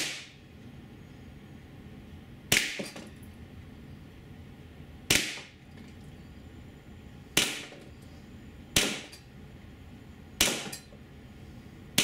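Tiberius T8.1 .68 calibre CO2 paintball pistol firing rubber balls at near-maximum power. There are seven sharp shots at uneven gaps of about one and a half to two and a half seconds, each dying away quickly.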